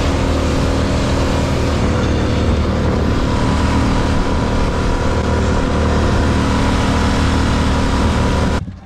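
An engine running steadily at an even speed under a loud rushing noise, cutting off abruptly near the end.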